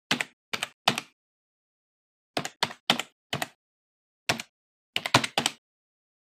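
Computer keyboard keystrokes, sharp separate clicks in uneven bursts: four in the first second, four more between about two and a half and three and a half seconds, one near four seconds, and a quick run of four around five seconds.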